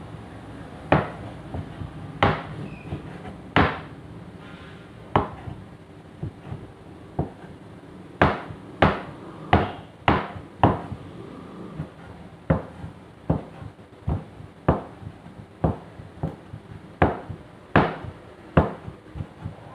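Meat cleaver chopping pork ear and face meat on a cutting board: single sharp knocks at an irregular pace, about one a second, coming quicker from about eight seconds in.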